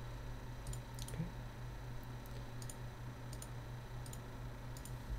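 Computer mouse clicking: about seven or eight sharp, spaced-out clicks, some in quick pairs, over a steady low hum.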